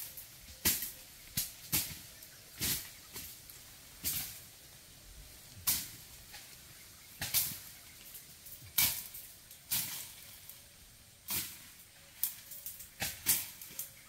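Short hissy rustles at irregular intervals, roughly one a second, over a faint steady background hiss.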